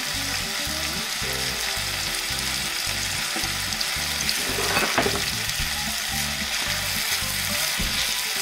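Broad beans, peas, spring onion and bacon sizzling steadily as they fry in olive oil in a pot, with a brief louder knock about five seconds in. A wooden spoon stirs the pot near the end.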